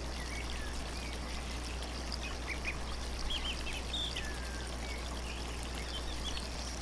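Waterfall rushing steadily, with faint bird chirps scattered behind it, mostly in the middle, and a constant low hum underneath. The hum is background noise in the field recording, and the birds are mixed too quietly under the water.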